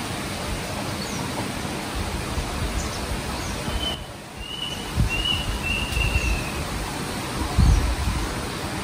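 Wind rustling through jungle trees and buffeting the microphone in gusts, with a bird giving a few short high chirps about four to six seconds in.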